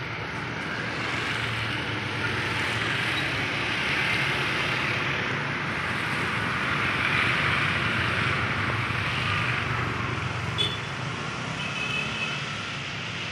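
Street traffic on a wet road: motorbikes and cars passing, a steady traffic noise that swells and fades as each goes by. A short click sounds near the end.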